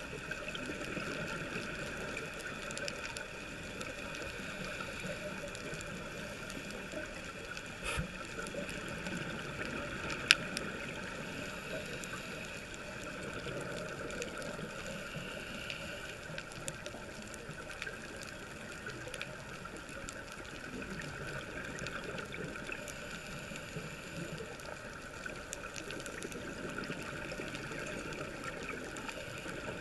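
Underwater ambient noise recorded by a camera during a reef dive: a steady muffled hiss and rumble, with a few sharp clicks, the loudest about ten seconds in.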